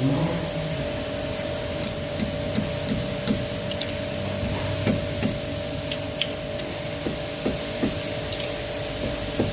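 Scattered light knocks and clicks of metal parts being handled while disc brake pads fitted with thin anti-squeal shims are put back into the caliper, over a steady background hum and hiss.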